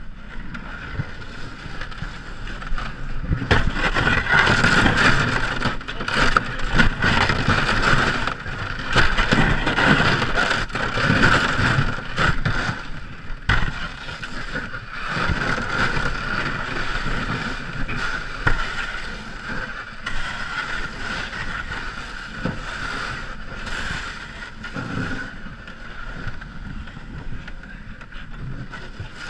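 Ice canoe hull scraping and grinding over river ice as the crew push it along, with many irregular crunches.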